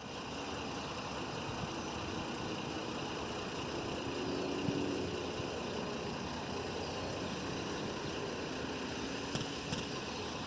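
A steady engine hum over constant background noise, with a faint wavering tone rising out of it around the middle and again near the end.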